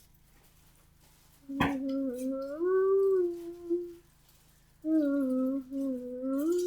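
A child humming a wordless tune in two phrases, the pitch gliding up and down, with a short click just before the humming starts.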